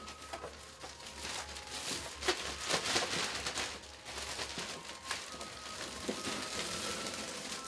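Large clear plastic bag rustling and crinkling as it is handled and stretched over the rim of a polystyrene box. The rustling is heaviest about one to four seconds in and lighter after that.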